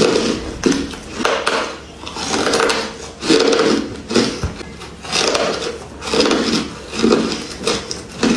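Close-miked chewing of a soft, powdery frozen ice bar: a crunch about once a second as the frozen bite is broken up in the mouth.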